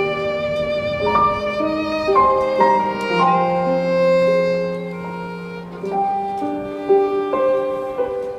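Background music led by violin, slow held notes over a soft accompaniment.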